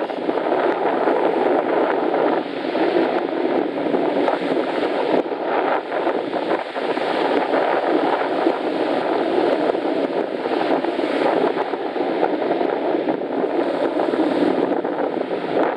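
Steady rushing noise of sea surf and wind blowing across the microphone on a beach after a storm, with no distinct events.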